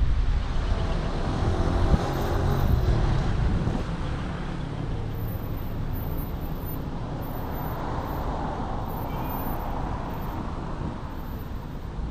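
Car driving on a town street: low engine and tyre rumble with wind buffeting the microphone, louder over the first four seconds, then quieter and steadier.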